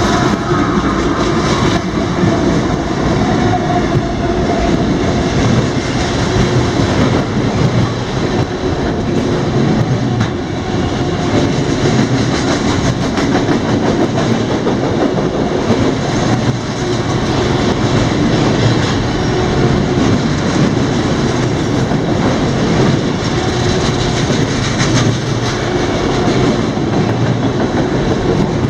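Freight cars of a CSX train rolling past, a loud steady rumble of wheels on rail with clicks from the wheels crossing rail joints.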